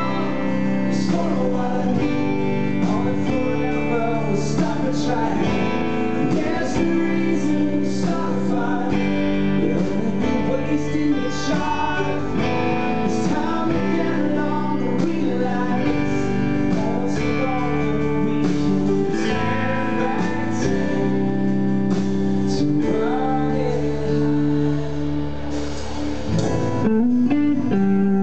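A live band playing a song: a male lead singer over guitar, keyboard and drums with cymbal strikes.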